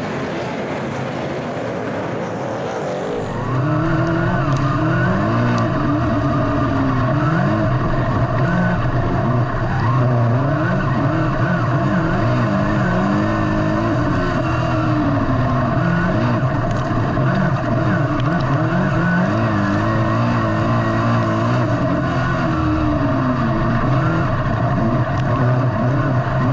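Dirt-track super saloon's V8 engine heard from inside the car, revs rising and falling over and over as it laps the dirt oval. It cuts in about three and a half seconds in, after a softer wash of race cars heard from beside the track.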